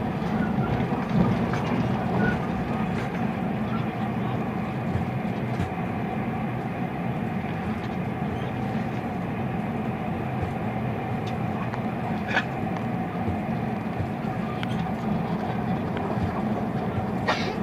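Steady running noise inside a moving train carriage: a low rumble of the wheels on the rails. Two short clicks sound, about twelve seconds in and near the end.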